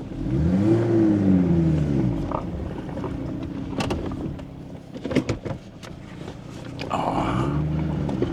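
Off-road 4x4's engine revving up and easing off twice, once in the first two seconds and again near the end, as it drives a dirt two-track. Brief knocks and rattles come in between.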